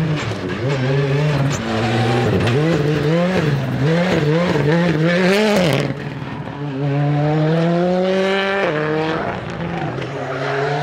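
Rally car engine worked hard. The revs swing rapidly up and down for several seconds as the throttle is blipped through a corner, then climb steadily under acceleration, drop sharply at a gear change near the end and climb again.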